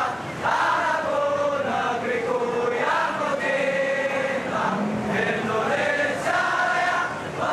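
A crowd of protesters singing together in unison, holding long notes in phrases a few seconds long.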